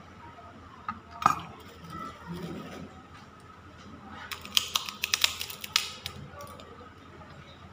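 Close-up eating: a crisp cracker crunched between the teeth, a fast run of sharp crackly clicks starting about four seconds in and lasting under two seconds. A single sharp click comes just after one second, and a faint steady whine sits underneath.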